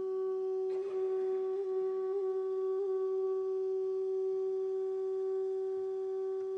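Clarinet holding one long, steady note, with a few small wavers in the pitch in the first three seconds.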